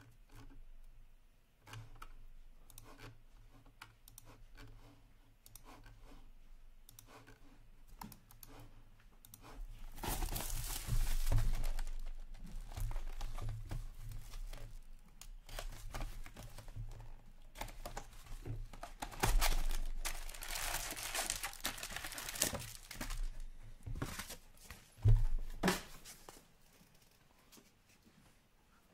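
Plastic wrapping on a sealed Upper Deck Ice hockey card box being torn open and crinkled, with scratching and handling of the cardboard box as its packs are taken out. The tearing and crinkling come in two long loud spells, and there is one sharp thump near the end.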